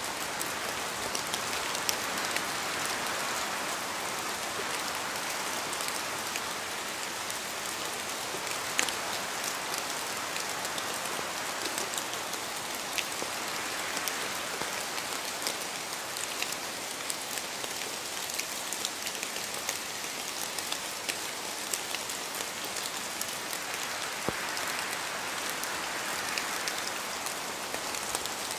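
Steady rain falling, an even hiss dotted with many sharp drop clicks.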